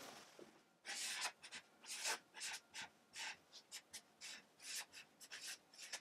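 Marker pen writing on flip-chart paper: a faint run of short scratchy strokes, beginning about a second in.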